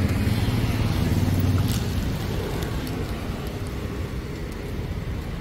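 Steady low rumble of road traffic, a little louder for the first two seconds and then easing off.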